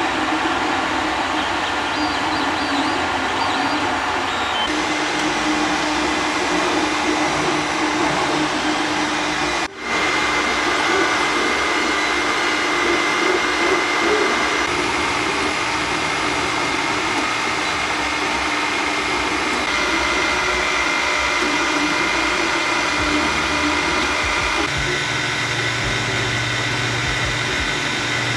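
Creality Ender 3 FDM 3D printers running a PLA print: cooling fans whirring steadily while the stepper motors whine and warble as the print head moves. The sound shifts abruptly every five seconds or so, with a brief dropout about ten seconds in.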